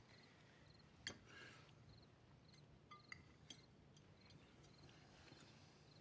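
Near silence with faint crickets chirping in a steady, repeating pattern, and a few light clicks of cutlery against plates, the sharpest about a second in.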